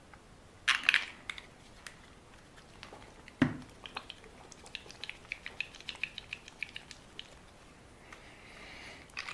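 Gel glue bottle and its plastic packaging being opened by hand: a short crinkle about a second in, a knock about three and a half seconds in, then a run of small quick plastic clicks and a soft scratchy rustle near the end.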